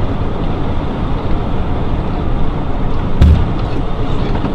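Car on the road, dashcam-recorded: steady engine and road rumble with one short thump a little over three seconds in.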